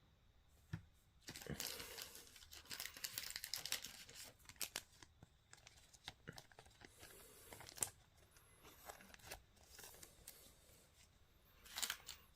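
Faint rustling, crinkling and tearing of trading-card packs and their foil wrappers being handled, with many small clicks. It is busiest over the first few seconds and comes back louder near the end.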